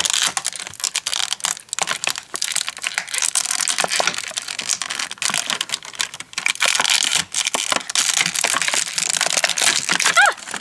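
Clear plastic blister packaging crinkling, clicking and snapping as it is flexed and pried apart by hand, a dense run of small crackles.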